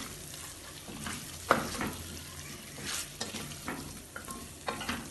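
Wooden spatula stirring and scraping chicken pieces in thick masala around a stainless steel pot, with a light sizzle of the frying masala underneath. A few sharper scrapes stand out, the loudest about a second and a half in.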